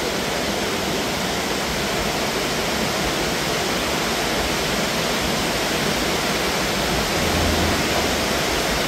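Steady rushing noise of flowing water in an underground river cave.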